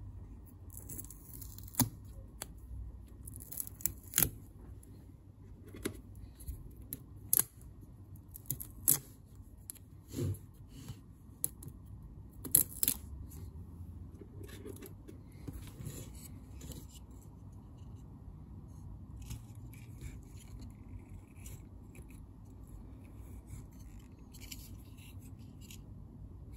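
Hands handling a circuit board fitted with cylindrical battery cells: a series of sharp clicks and taps with bursts of rustling over the first dozen seconds, then only faint rustling.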